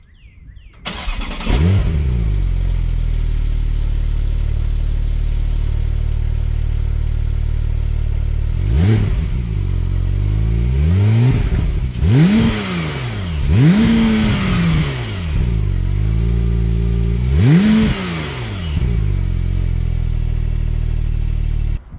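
Porsche 911 Turbo S twin-turbocharged 3.8-litre flat-six, through an aftermarket Soul exhaust. It starts about a second in, flares up and settles into a steady idle, then is revved several times with quick throttle blips that rise and fall back to idle. The sound cuts off suddenly near the end.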